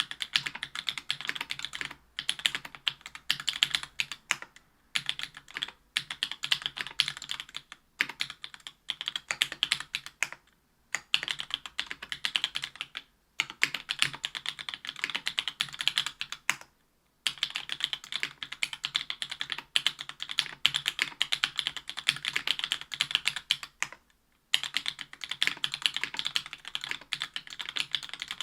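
Typing on a mechanical keyboard with stock JWK Black Clear Top 62g linear switches, an aluminium plate and GMK keycaps. It is a fast, steady run of keystroke clacks, broken by brief pauses every few seconds.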